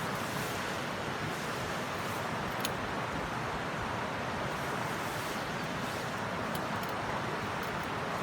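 Wood fire burning in a lidded BBQ stove: a steady rushing hiss with a sharp crackle about two and a half seconds in and a few more crackles later on.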